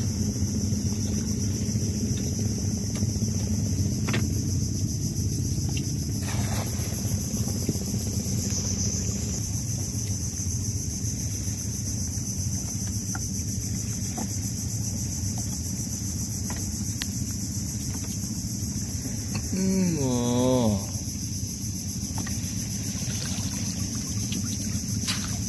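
Steady, high-pitched insect buzzing, a chorus of crickets or cicadas, over a low steady hum. About twenty seconds in, a short wavering call rises and falls in pitch for about a second.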